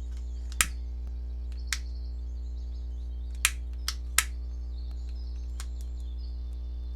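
A puppy crunching dry kibble: five sharp, separate crunches in the first four seconds or so, over a steady low hum.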